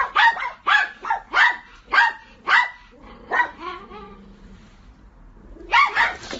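A dog barking in a rapid run, about two barks a second, for the first three seconds or so. The barks weaken and pause, then a quick burst of barks comes near the end.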